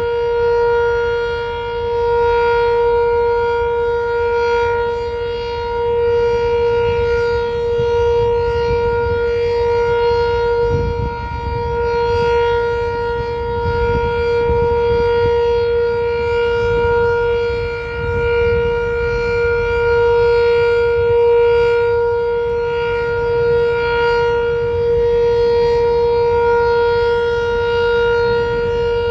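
Sentry 7V8 electromechanical outdoor warning siren sounding a steady tone during a siren test. It holds one flat pitch, and its loudness swells and fades every few seconds.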